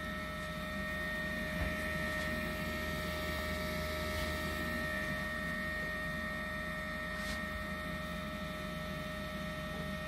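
Combustion blower fan of an HTP UTF 80 gas boiler running steadily and much quieter, a constant whine over a low hum. Its shaft has been oiled and re-centred, so the blades no longer hit the housing.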